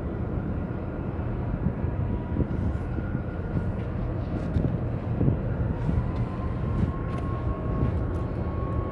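Steady low rumble of outdoor harbour ambience, with a faint steady high tone coming in about six seconds in.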